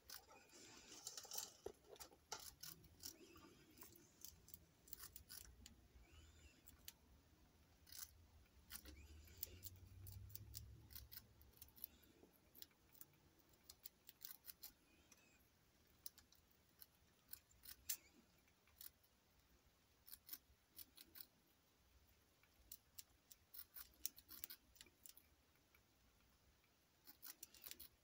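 Faint, irregular crunching clicks of a pet rat chewing dry food.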